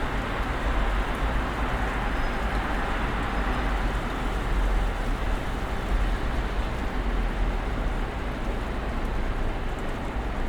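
Snowstorm ambience: a steady, even hiss with a low rumble underneath.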